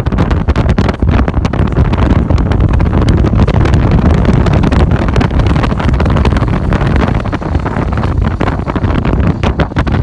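Heavy wind buffeting on the microphone held at the open window of a moving car, over the low rush of the car's road noise.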